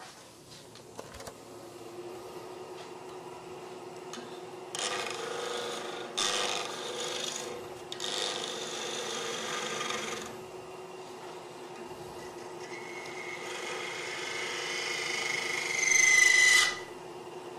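Wood lathe running with a steady hum while a turning tool cuts soft white maple near the chuck, shaving in uneven bursts. Near the end the tool sets up a high-pitched squeal that grows louder and cuts off suddenly.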